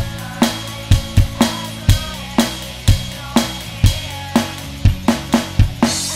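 Alesis Nitro Mesh electronic drum kit playing a steady rock beat, bass drum and snare about twice a second, over a backing track of the song. Near the end it speeds into a quick fill of hits that ends on a crash cymbal.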